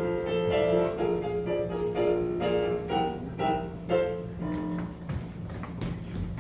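Piano music: a run of notes that thins out and stops about four to five seconds in, with a steady low hum underneath.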